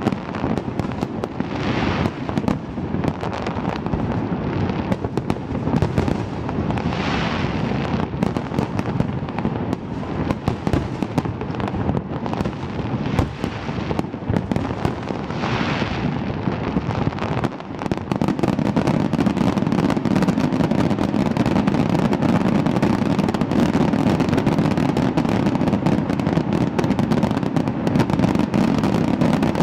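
Fireworks going off in a dense, continuous barrage of bangs and crackling, with a few hissing bursts. About halfway through it thickens into a louder, unbroken rumble of crackling.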